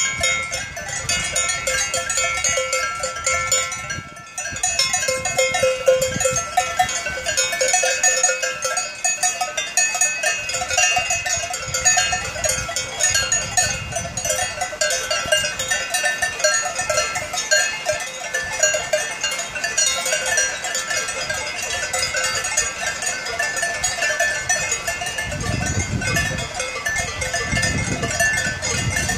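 Many cowbells on a herd of brown cows ringing and clanking together unevenly as the cows walk and graze, a dense, continuous jangle of overlapping bell tones.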